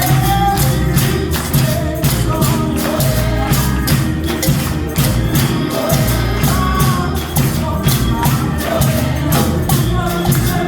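Up-tempo gospel music: a tambourine shaking on a quick, steady beat over bass and voices singing.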